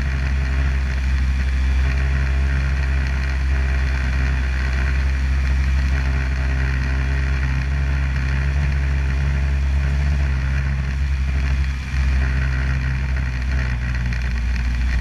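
Snowmobile engine running steadily at cruising speed with the track hissing over snow, easing off briefly about twelve seconds in.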